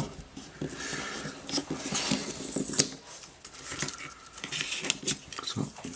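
Plastic printer parts being handled and pried apart by hand: scattered small clicks and light scraping, with one sharper click about three seconds in.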